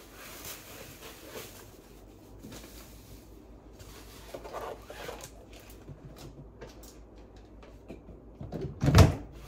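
Groceries being put away in a refrigerator: soft rustling of a cloth tote bag and small clicks of items on the shelves, then the refrigerator door shutting with a loud thump near the end.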